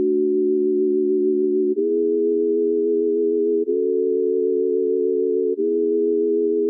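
Background music of held, steady chords in a low-middle register, moving to a new chord about every two seconds.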